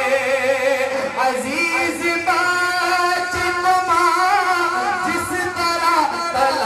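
Male naat reciter singing long, drawn-out melismatic notes whose pitch wavers and glides, with no clear words.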